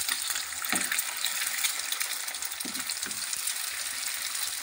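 Egg frying in hot oil in a nonstick pan, a steady sizzle, with a few strokes of a wooden spatula as it is scrambled.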